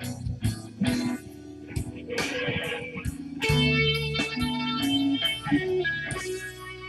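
Blues played on electric guitar, with held notes over a steady beat.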